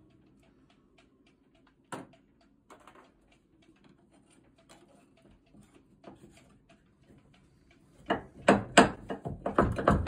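Hands and metal tools working on a small marine diesel engine: faint scattered clicks and taps, then a run of loud sharp clicks and knocks near the end.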